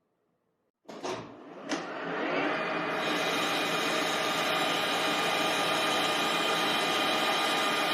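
A lathe switched on: a couple of sharp knocks, then its motor and spindle spin up over about a second and run on steadily with an even hum.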